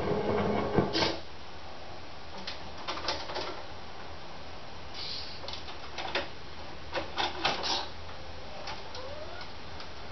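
A modified VCR with wooden dowels on top, heard through an amplifier and speaker cabinet, makes sparse mechanical clicks and short scratchy bursts, with a brief rising squeal near the end, over a steady low hum.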